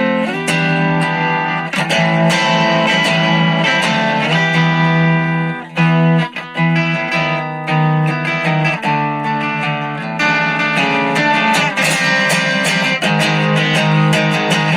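SX Vintage Series Telecaster electric guitar played through a Marshall MG10 amp: a run of picked notes and strummed chords, with a short break about six seconds in.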